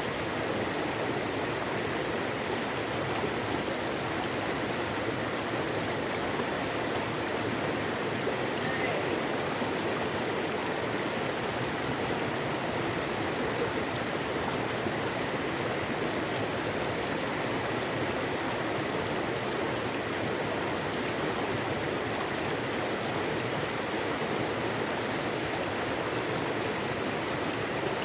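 Steady rushing of river water, with no change in its flow.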